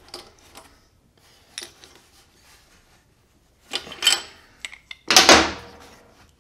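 Hands working on a Honda GXC160 mower engine: a few light metal clicks and scrapes, then a louder sharp clunk with a short ring-out a little after five seconds in.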